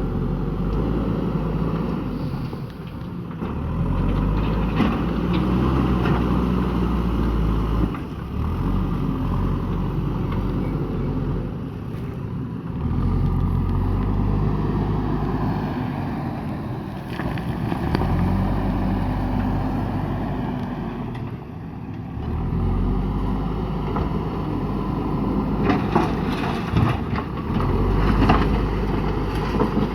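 JCB backhoe loader's diesel engine running, revving up and easing off again every few seconds as the machine works. A few sharp knocks come near the end.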